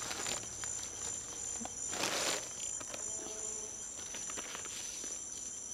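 Steady high-pitched insect chorus from the surrounding bush, with a brief paper rustle about two seconds in as an envelope is handled and opened.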